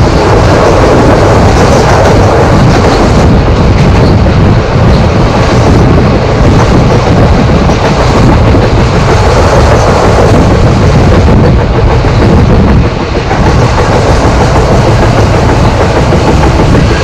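Express train's passenger coach running at speed, heard from its open window: a loud, steady rumble of wheels on the rails with air rushing past.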